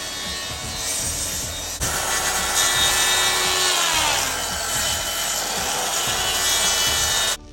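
Power saw cutting a panel or timber, its motor pitch dropping under load about three to four seconds in and climbing back afterwards; the sound cuts off suddenly near the end.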